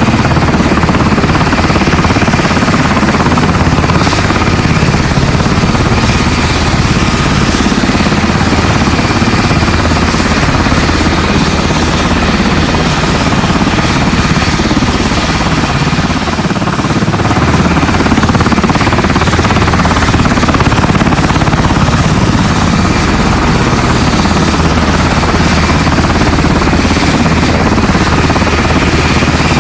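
Helicopter sound effect: loud, steady rotor and engine noise.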